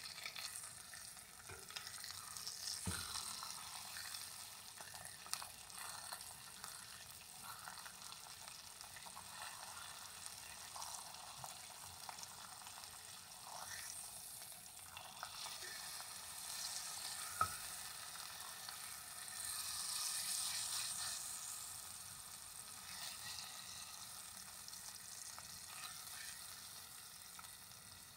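Beef short ribs searing in olive oil in an enameled cast-iron Dutch oven: a steady sizzle that swells for a couple of seconds about two-thirds of the way through. A few sharp clicks of the metal tongs turning the ribs.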